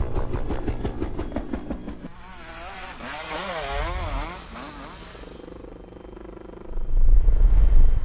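Motocross dirt bike engines revving on the track, their pitch rising and falling again and again in the middle, then a loud low rumble near the end as a bike runs close.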